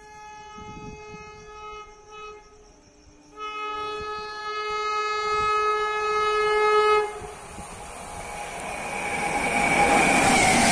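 WAP-7 electric locomotive horn sounding two long blasts as the express approaches, the second louder and longer. It is followed by a rising rush of wheel and rail noise as the train arrives at speed, about 130 km/h.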